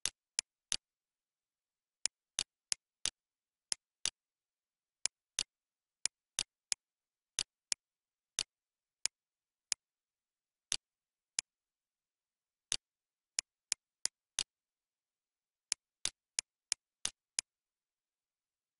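Computer mouse clicks, about thirty short sharp clicks at irregular times, often in quick runs about three a second, with dead silence between them.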